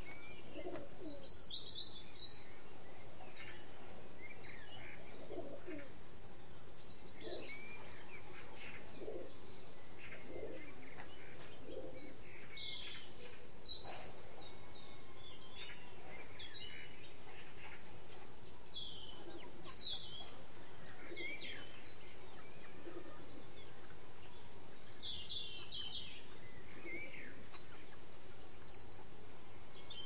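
Birds chirping and calling: many short, high chirps from small birds scattered throughout, with occasional short lower-pitched calls, over a steady faint background hiss.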